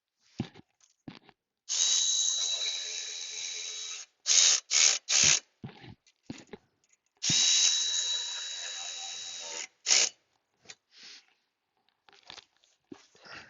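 A quarter-inch power tool running bolts down. It makes two steady runs of about two seconds each, with a high steady whine, and each run is followed by short blips as the bolts are snugged tight.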